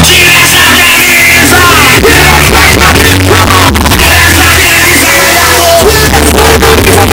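Loud music with heavy bass and a singing, yelling voice, played through a pickup truck's car sound system.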